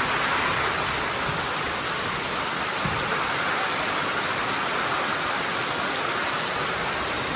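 Steady rain falling in a storm, a dense, even hiss.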